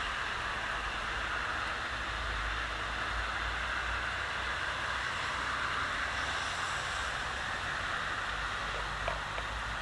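Steady, even hiss with a low rumble underneath and a faint click about nine seconds in.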